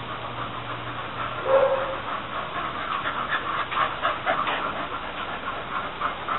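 Dog panting quickly in short breathy puffs, with a brief whine about a second and a half in.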